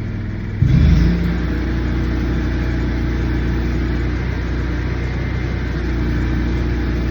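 An engine running steadily. Just over half a second in it gets suddenly louder and brighter, then holds at that level.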